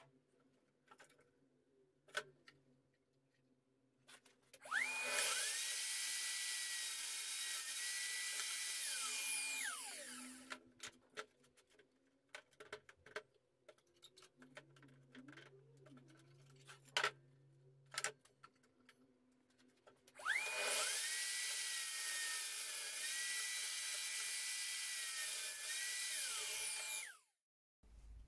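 Table saw switched on twice, each time spinning up to a steady high whine and cutting through a wooden board, then switched off and winding down. The first run lasts about five seconds, the second about seven. Between the runs come clicks and knocks of the boards being handled.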